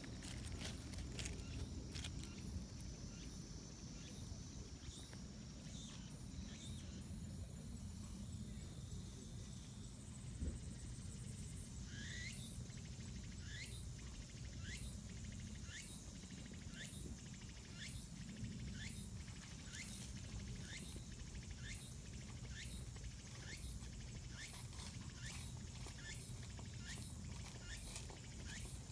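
Outdoor background with a steady low rumble and, from about halfway through, a regular string of short high chirps rising in pitch, about one and a half a second.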